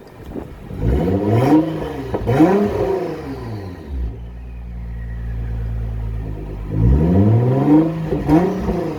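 Nissan GT-R's twin-turbo engine revved in park: two quick throttle blips, the note rising and falling each time, then settling to a steady idle, then two more blips near the end.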